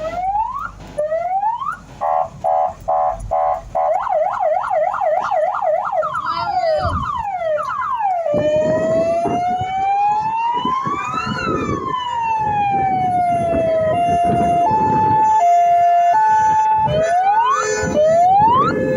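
Fire truck electronic sirens cycling through their tones: short rising whoops, a fast pulsing yelp, a quick up-and-down warble, then one long slow wail that rises and falls, a two-note hi-lo, and more whoops near the end. A rough, low noise runs beneath the long wail.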